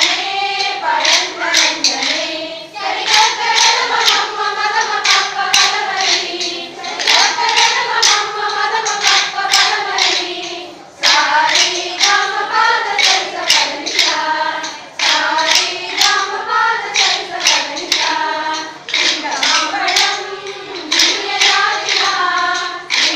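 A group of voices singing together in unison while hands clap a steady beat. The singing and clapping pause briefly about ten seconds in, then resume.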